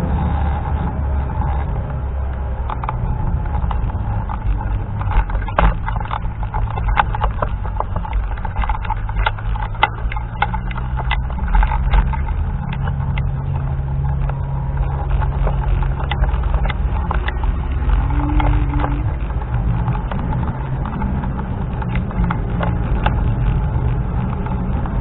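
Wind buffeting the microphone during a scooter ride, heard as a heavy low rumble, with a low hum and many sharp clicks and rattles as the scooter rolls over the path, the clicks thickest in the middle.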